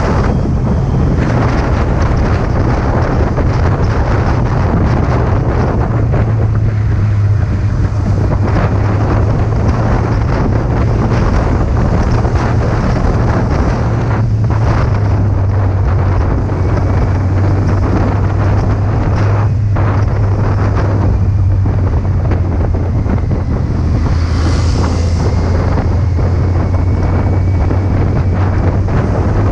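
Heavy wind noise buffeting the microphone while riding a Kawasaki Z800 motorcycle, over the steady low hum of its inline-four engine at cruising speed.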